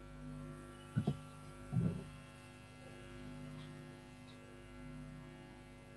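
Steady low electrical hum, like mains hum, with two brief low sounds about one and two seconds in.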